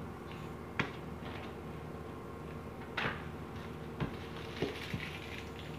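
Small metal parts of a Shimano Ultegra 14000 spinning reel clicking and scraping as they are handled and fitted together by hand: a few sharp clicks and one short scrape, over a steady low hum.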